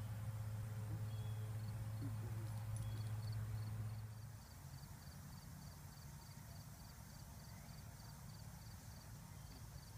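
Outdoor field ambience: a low steady rumble for the first four seconds or so, dropping away suddenly. A faint high insect chirp then repeats evenly about three times a second.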